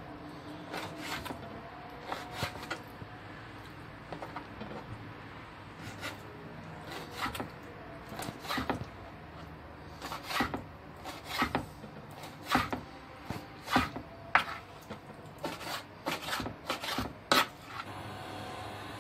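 Kitchen knife dicing raw lamb liver on a wooden cutting board: irregular knocks of the blade on the board, with softer rubbing as the pieces are pushed about. The knocks stop near the end.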